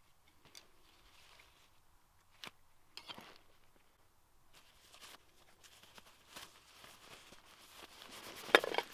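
Gear handling at a canvas pack: fabric rustling with scattered small knocks and clicks as a sheathed hatchet and a stuff sack with a plastic clip are pushed into a side pocket, and a sharper cluster of knocks comes near the end.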